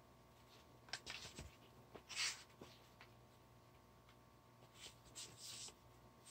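Paperback book pages being turned and rustled in a few short, soft swishes: a cluster about a second in, the loudest about two seconds in, and a few more near the end.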